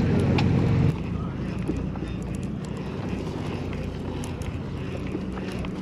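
Sportfishing boat's engine running with a steady low hum, which drops abruptly about a second in to a quieter steady drone.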